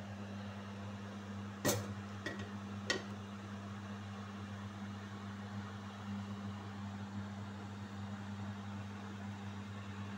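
Glazed clay tagine lid being lifted off the base, clinking sharply three times within about a second and a half, about two seconds in, over a steady low hum.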